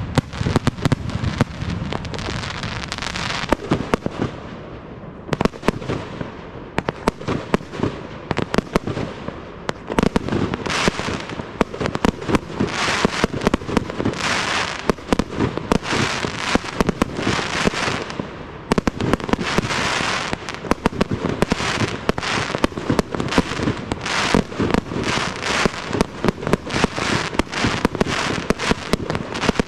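Professional fireworks display: a fast stream of shell launches and bursts, the bangs coming close together. From about a third of the way in, repeated waves of dense crackling follow from white crackle-star shells.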